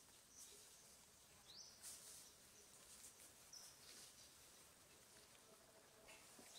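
Near silence: faint outdoor background with three brief, high, thin chirps about two to three seconds apart, and a few faint ticks.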